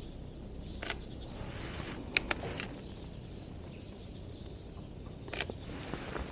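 Sony a7R III camera's shutter firing over steady outdoor background noise. There is a sharp click about a second in, a quick double click about two seconds in, and another click near the end.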